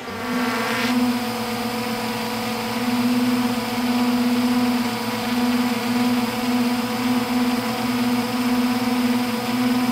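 Quadcopter drone's electric motors and propellers running with a steady whirring hum, swelling and easing slightly in loudness, heard from the camera mounted on the drone itself.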